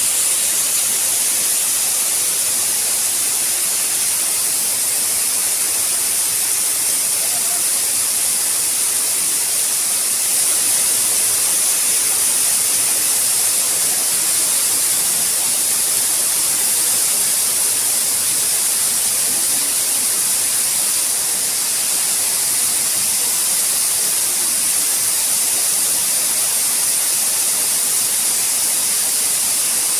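Waterfall rushing: a loud, steady hiss of falling water and spray that doesn't change.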